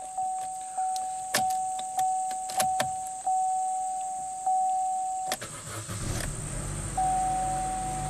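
A steady electronic warning chime with a few sharp clicks, then about five and a half seconds in the 2012 Chevy Cruze's 1.4-litre turbocharged four-cylinder cranks, starts and settles to a steady idle, with the chime coming back near the end. The engine is running with its MAP sensor unplugged.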